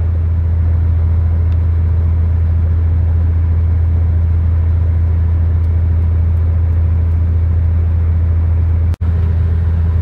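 Tractor engine running steadily, heard from inside the cab as a loud, even low hum. The sound drops out for a split second about nine seconds in.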